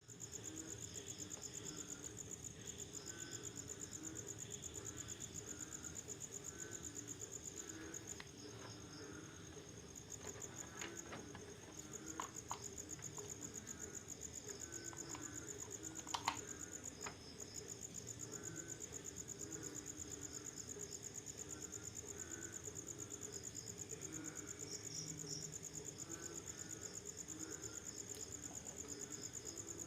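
Night chorus of crickets, a steady fast-pulsing high trill, with frogs calling in short repeated bursts underneath. A few sharp clicks sound in the middle, the loudest about 16 seconds in.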